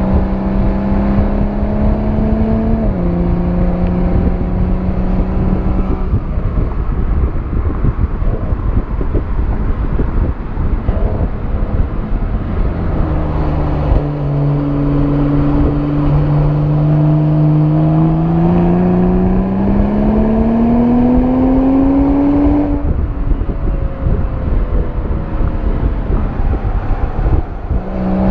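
BMW M340i's turbocharged 3.0-litre inline-six heard right at the exhaust while driving in Sport Plus mode, under heavy wind and road rush. The exhaust note drops at an upshift about three seconds in and fades under the wind while coasting. From about 13 seconds it holds steady, then climbs under acceleration before cutting off sharply about 23 seconds in.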